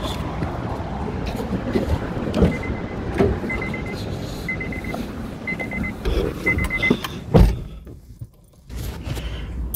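A Honda car's driver door opened and shut as someone gets in, over wind noise. A short electronic chime beeps about once a second, five times, then the door shuts with a single thump and the beeping stops.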